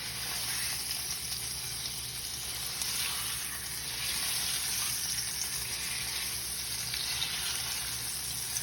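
Ribeye steak searing in hot oil in a pan: a steady sizzle.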